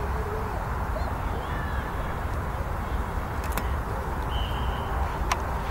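Open-air ambience at a rugby match: a steady low rumble with faint shouts from players. About four seconds in comes a short, steady blast of a referee's whistle, and a couple of sharp clicks follow near the end.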